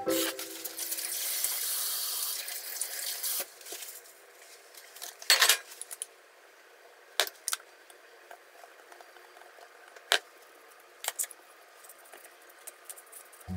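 Food preparation sounds on a kitchen counter: a soft hiss for the first three seconds, then a few sharp knocks and clicks as a container is handled and set down, loudest about five seconds in.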